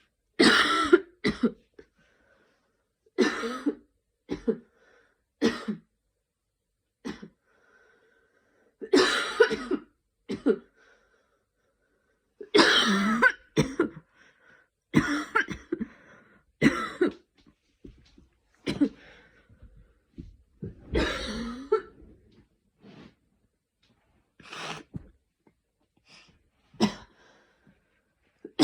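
A young woman with a cold coughing again and again: hard, sudden coughs, some single and some in quick runs of two or three, separated by quiet pauses of a second or two.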